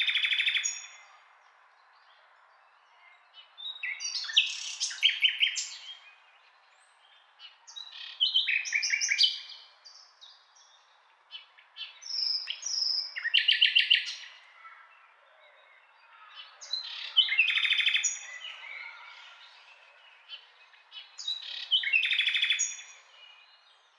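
Nightingale singing: six separate song phrases of fast repeated notes and trills, each a second or two long, with pauses of a few seconds between them.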